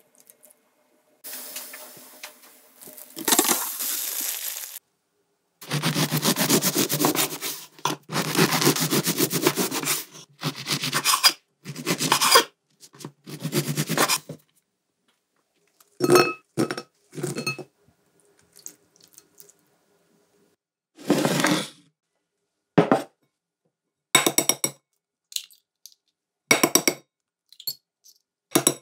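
Close-miked kitchen sounds. First milk is poured over cubes of stale bread in a bowl. Then a knife saws through a crusty baguette in quick strokes, with the crust crackling, and near the end eggshells crack and are pulled apart in a few short cracks and clicks.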